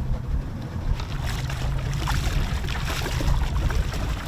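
Wind buffeting the microphone on an open boat with a steady low rumble, and about a second in a stretch of splashing, hissing water noise that lasts a couple of seconds.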